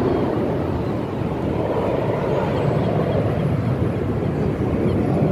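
Distant aircraft engine noise overhead: a steady, low rumble.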